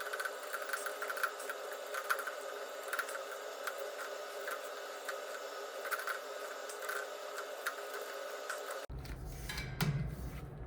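A wrench tightening the screws that clamp a belt-drive sheave onto its hub: irregular light metal clicks and scraping over a steady hum. About nine seconds in, the background changes abruptly to a low rumble.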